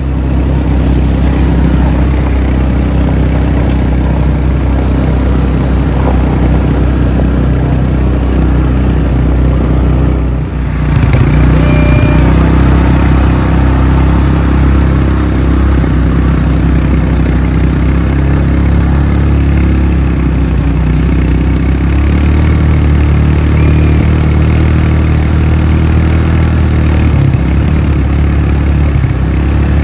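ATV engine running steadily while under way. Its sound drops off briefly about ten seconds in, then picks back up.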